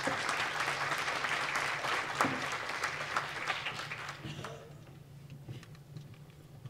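Audience applauding: dense clapping that fades out after about four seconds, leaving a few scattered claps and knocks.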